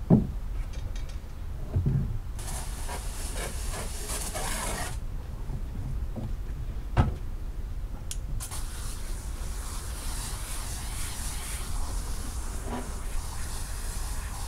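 Water jet spraying onto a wet rug with a steady hiss: a short burst about two and a half seconds in, then continuous spray from about eight and a half seconds on. A few dull thumps come near the start and about seven seconds in.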